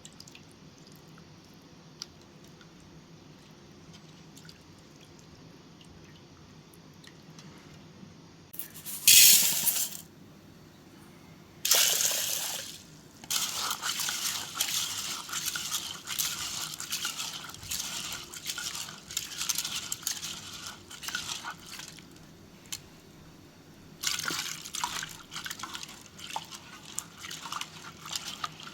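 Faint room tone, then water pouring and splashing in several bursts. The first burst, about nine seconds in, is the loudest, and uneven stretches of splashing and dripping follow.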